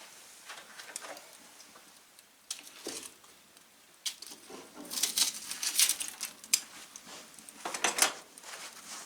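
Irregular rustling and scuffing with light clicks, as of someone moving about and handling gear, busiest about five to six seconds in and again near eight seconds.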